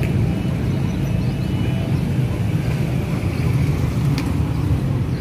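Four-stroke auto-rickshaw engine idling with a steady low rumble.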